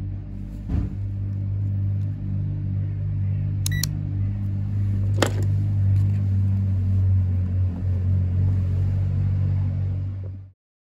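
A steady low machine hum, with a sharp click about a second in and another about five seconds in as the multimeter's test probes are pulled out of the mobility scooter's charging socket. A brief high electronic beep comes near the middle, and the sound cuts off suddenly just before the end.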